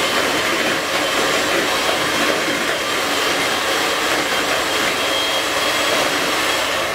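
Electric hand mixer running steadily, its beaters whirring through butter, egg yolks and sugar as they are creamed into a smooth mixture.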